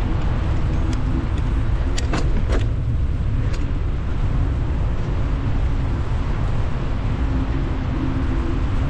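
Wind buffeting the microphone: a steady low rumble, with a few faint clicks between about one and four seconds in.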